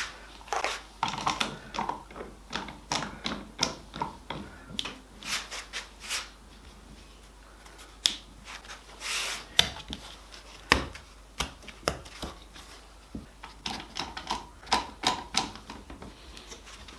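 Pin gun firing brad pins to hold glued blackwood strips, heard as a run of sharp, irregular clicks and knocks, several a second at times with short pauses between.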